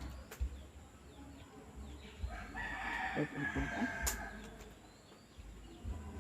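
A single long pitched animal call, starting about two and a half seconds in and lasting under two seconds, with a few sharp clicks around it.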